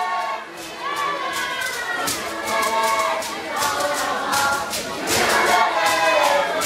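A group of voices singing a traditional dance song together, with sharp percussive beats keeping time about twice a second.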